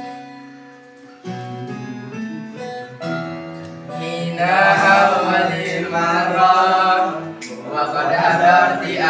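A group of teenage boys singing together, holding long notes; the singing comes back in after a second and grows louder from about four seconds in.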